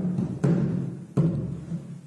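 Marawis drum ensemble playing a zapin rhythm: deep, ringing strokes on the large double-headed hajir drum, about three in the two seconds, with lighter hand slaps on the small marawis frame drums between them in a question-and-answer (tanya–jawab) pattern.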